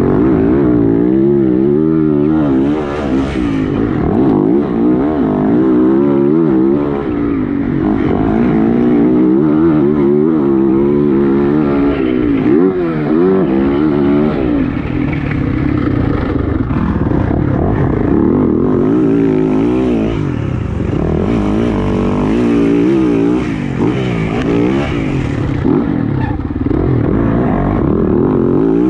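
Motocross bike engines revving up and falling back over and over, more than one bike at once.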